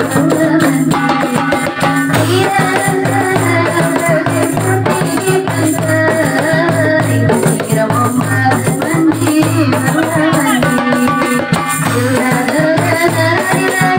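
Marawis ensemble playing: hand drums and jingling tambourines keep a steady, dense beat under a melody.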